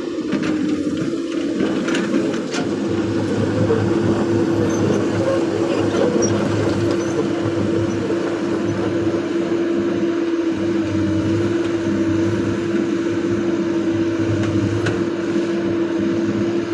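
Hydraulic excavator's diesel engine running steadily under work, with a constant droning tone and a few metallic clanks in the first few seconds.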